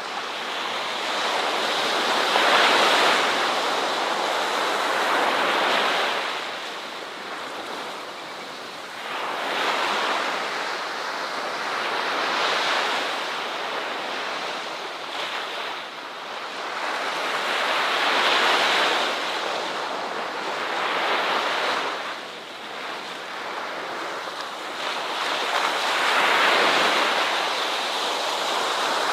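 Ocean waves breaking on a shore. The surf swells and washes back every few seconds in an uneven rhythm, over a continuous hiss of moving water.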